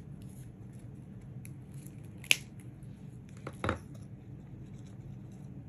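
Wire cutters snipping the stem of a craft flower: one sharp snip about two seconds in, then a duller click a little over a second later.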